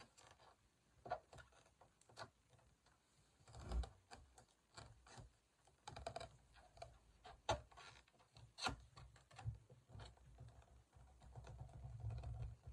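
Faint handling of an inflated latex balloon as its neck is pinched and knotted by hand: scattered small rubber squeaks, rubs and light taps, a few slightly louder ones through the middle.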